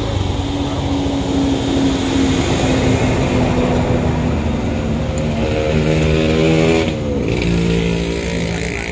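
A motor vehicle's engine running close by. Its pitch sinks slowly at first, climbs, drops sharply about seven seconds in, then rises again, as it pulls away through the gears.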